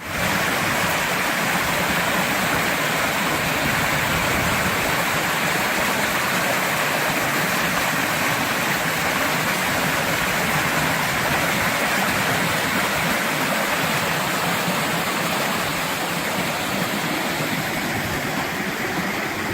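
Steady rushing water, as from a stream or small waterfall: a loud, even hiss that cuts off abruptly near the end.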